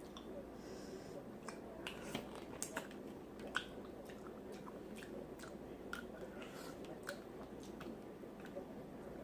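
Mouth sounds of eating seafood boil: wet chewing and lip smacking, heard as irregular sharp clicks and smacks.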